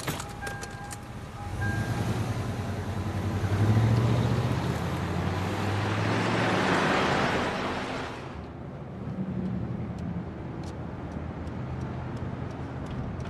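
Street traffic: car engines running with road noise, swelling to its loudest about midway, then dropping suddenly to quieter traffic.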